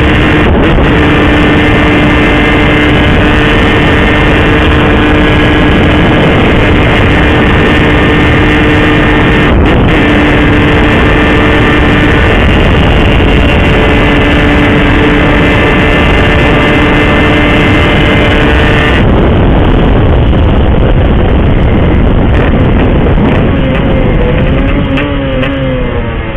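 Yamaha RX-King's 135 cc single-cylinder two-stroke engine running flat out at high, steady revs, held on full throttle without seizing. Near the end the pitch falls as the throttle eases off.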